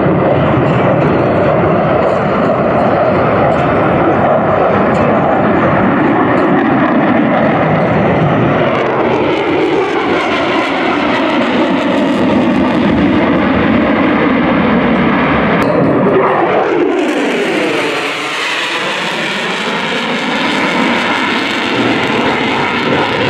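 F-35 fighter's single afterburning turbofan engine, loud and continuous as the jet flies past. Its noise takes on a swirling, sweeping tone that falls and then rises again in the middle, turning hissier near the end as the jet passes.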